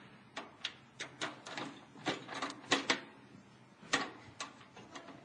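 Sheet-metal side access panel of a central air conditioner's outdoor unit being worked open: an irregular series of sharp clicks and light metallic knocks, loudest about three and four seconds in. The unit is powered off, so no fan or hum is heard.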